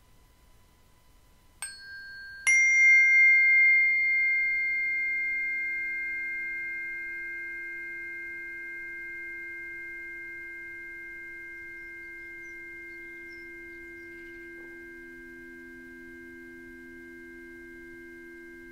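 Two strikes on ringing metal sound-healing instruments, about a second apart, the second much louder. Several clear tones, high and low, ring on and fade slowly, and a low tone swells slightly near the end.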